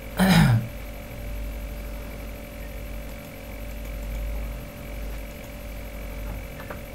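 A brief vocal sound from the man, falling in pitch and with breath in it, about a quarter second in. It is followed by a steady low hum of background noise with a few faint steady tones above it.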